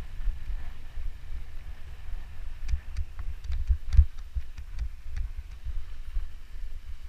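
Mountain bike rolling over a rough dirt trail, heard through a handlebar-mounted camera: an uneven rumble of jolts and thumps from the bumpy ground, the strongest about four seconds in, with scattered sharp clicks and rattles from the bike.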